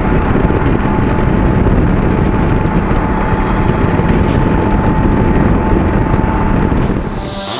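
Steady wind rush over the microphone mixed with the engine and road noise of a Honda Africa Twin CRF1000 cruising at motorway speed. About 7 seconds in it fades as electronic music comes in.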